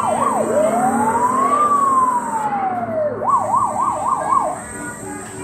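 Electronic fire-truck siren sound effect from a children's play fire truck: a fast yelp, then one slow wail rising and falling, then the fast yelp again, stopping about four and a half seconds in.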